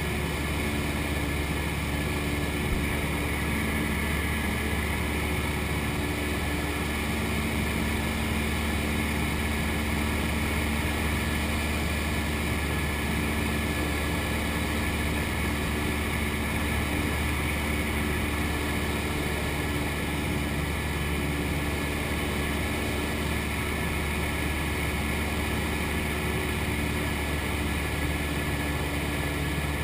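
Cessna 172's piston engine and propeller running steadily, heard inside the cabin as a constant hum that does not change in pitch.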